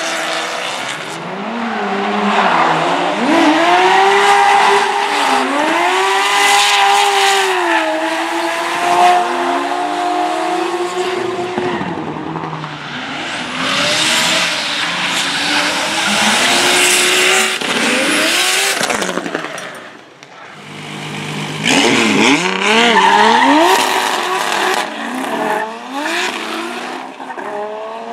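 Drift cars sliding, their engines revving up and down on and off the throttle over the squeal of spinning, smoking tyres. The sound dips briefly about two-thirds of the way through, then a car comes through again, revving hard.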